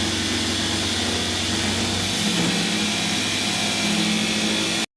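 A motor or engine running steadily with a hissing whine. About two seconds in its low hum drops away and a lower-mid drone takes over, and the sound cuts off abruptly just before the end.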